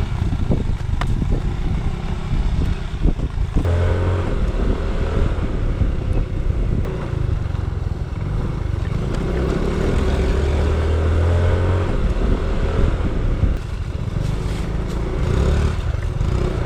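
Small motorbike engine running under way on a bumpy sandy track, with its note rising and falling, over heavy low wind rumble on the microphone.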